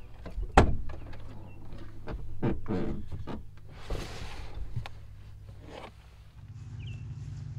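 A pickup truck's rear cab door unlatching with a sharp click and swinging open, then a plastic storage tote with a lid being knocked about and dragged off the back seat floor with a scraping rustle.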